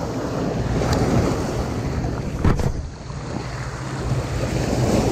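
Surf breaking and washing over a rocky shoreline, with wind rumbling on the microphone; the wash eases about three seconds in and swells again. A couple of short clicks sound about one and two and a half seconds in.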